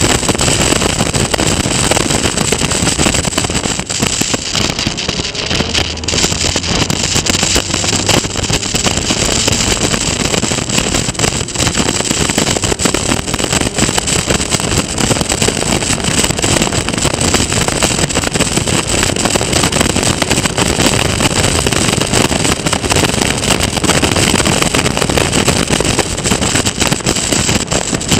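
Caterham Seven racing car's four-cylinder engine running hard under racing load, heard from an onboard camera mounted on the car, mixed with wind and road noise.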